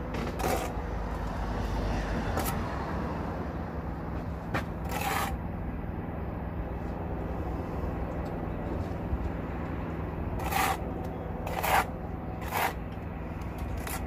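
Brick trowel working mortar on a dental course: some scraping, then a few sharp taps, three of them about a second apart near the end, as bricks are knocked into line. A steady low rumble runs underneath.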